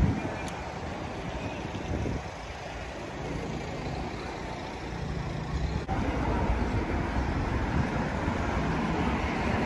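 Town street traffic: cars driving past on the road, a steady wash of traffic noise that grows louder about six seconds in.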